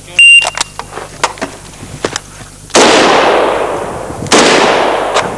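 Sa vz. 58 assault rifle firing two single shots about a second and a half apart, each ringing out and fading slowly. Just after the start there is a brief, very loud crack, and a few small clicks in between.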